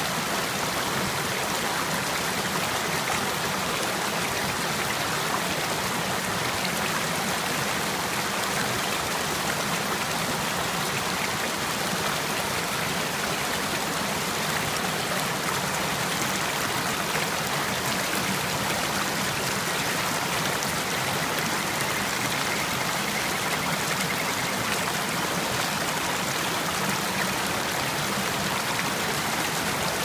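Small mountain stream cascading over rocks into a foaming pool: steady, unbroken rushing and splashing of water.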